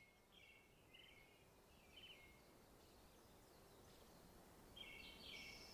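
Faint, high bird chirps: a few short notes in the first two seconds, then a busier run of calls about five seconds in, over a quiet background hiss.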